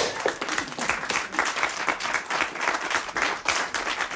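Applause: many hands clapping quickly and unevenly, right after a song ends.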